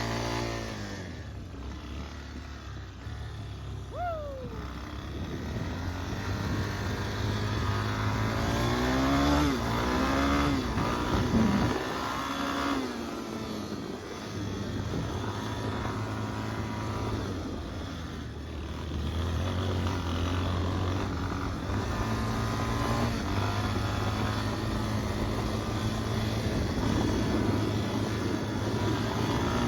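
Yamaha Warrior 350 ATV's single-cylinder four-stroke engine being ridden, its pitch rising and falling repeatedly as the throttle is opened and closed.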